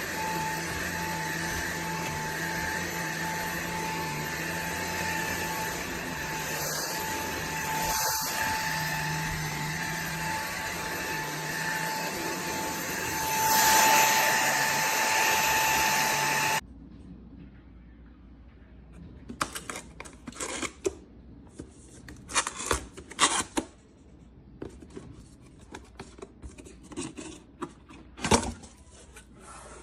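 Cordless stick vacuum running with a steady whine over a low hum, briefly louder about fourteen seconds in. It is then switched off abruptly a little past halfway, leaving scattered light clicks and taps.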